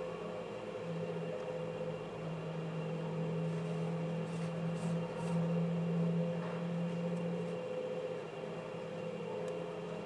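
A steady low hum, with faint rustling of paracord being pulled and tucked by hand a few times in the middle.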